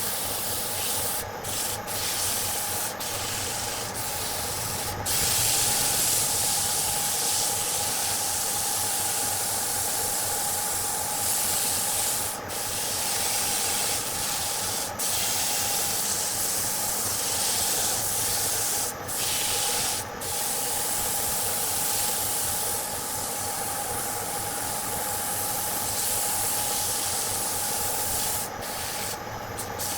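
Power sanding on wood: a steady motor whine under a continuous abrasive hiss, broken by several brief gaps.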